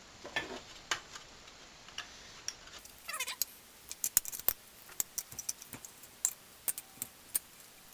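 Irregular light clicks and taps of snowblower parts and tools being handled during reassembly, with a brief falling squeak about three seconds in.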